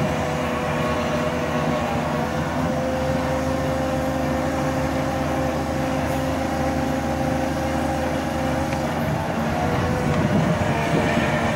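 Caterpillar excavator's diesel engine and hydraulics running steadily under load while driving a hydraulic drill attachment into the seabed: a continuous drone with a held whining tone, growing a little louder and rougher about ten seconds in.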